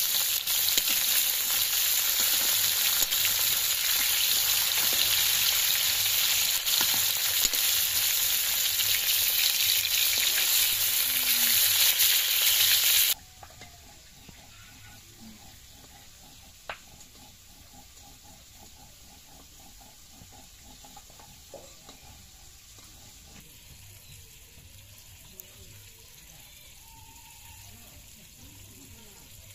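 Rohu fish pieces frying in hot oil in an iron wok, a loud steady sizzle as they are turned with a spatula. The sizzle cuts off suddenly about 13 seconds in, leaving a quiet background.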